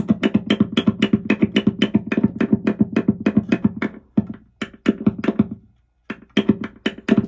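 A screwdriver rapidly tapping the pole pieces of a Seymour Duncan humbucker, heard through the amplifier via the Blackouts active preamp: about five or six amplified taps a second, each with a low ring, while the tone knob is turned to check that it works. The tapping breaks into short bursts in the second half.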